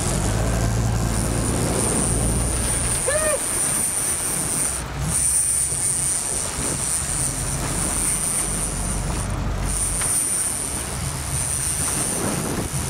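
Sport-fishing boat's engine running under a rush of wind and water, with a steady high whine over it that breaks off briefly twice.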